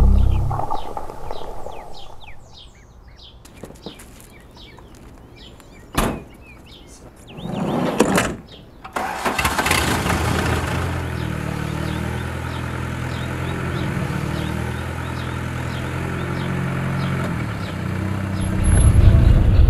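A campervan engine being started: a click, a short spell of cranking, then the engine catches and idles steadily, growing louder and deeper near the end.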